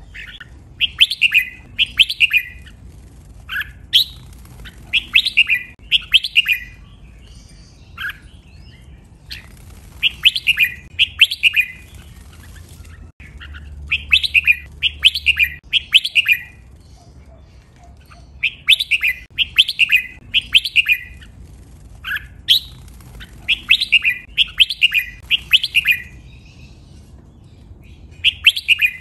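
Red-whiskered bulbul singing: about six short, bright phrases, each a quick run of several notes, with a second or two between them.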